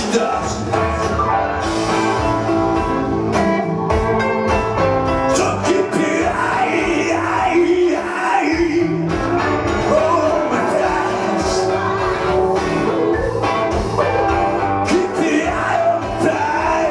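Male singer performing a song live over an amplified backing track with a steady drum beat.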